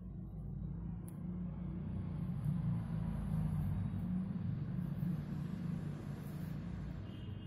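A low rumble that builds for a few seconds and then fades away again.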